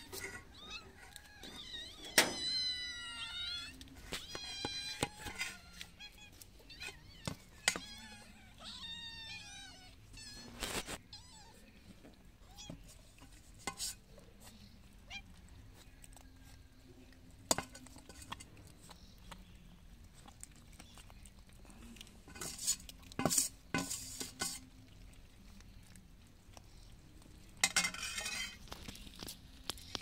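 Several cats meowing, a few wavering calls in the first ten seconds, while a metal ladle clanks against a metal pot as food is served. After that come scattered sharp clinks and soft clicks as the cats eat.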